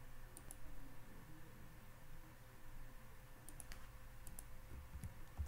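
Faint clicks of computer keys being pressed, a handful of short taps, most of them about three to five seconds in.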